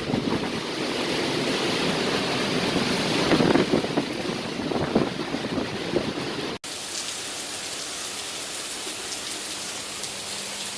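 Heavy rain pouring down in a dense, steady wash of water noise. About two-thirds through it breaks off abruptly and resumes as slightly quieter, steady rain with scattered sharp drips.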